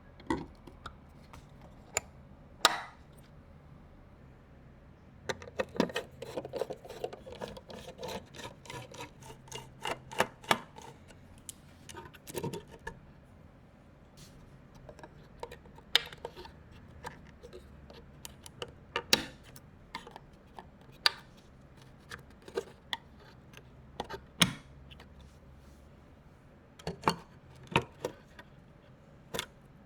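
Computer parts and packaging being handled: scattered sharp clicks and taps of plastic and metal, with a busier stretch of rustling and fiddling from about five to thirteen seconds in.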